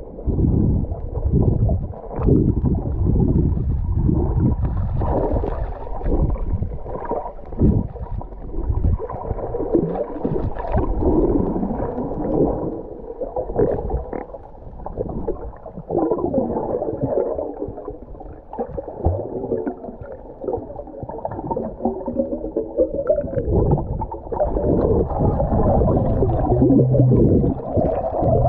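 Muffled underwater sound of seawater: low rumbling and gurgling with bubbles, surging up and down irregularly.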